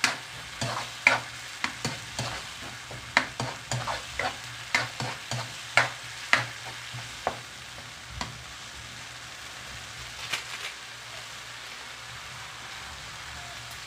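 A metal spoon stirring and scraping a tomato, onion and garlic masala in a thin metal wok, clinking against the pan many times over the first seven seconds, then only a few times more before stopping. Under it the masala sizzles steadily in the oil.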